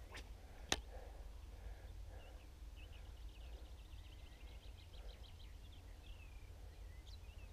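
Birds calling: a rapid run of short high chirps followed by a few sliding notes, over a low steady rumble. A single sharp click sounds just under a second in.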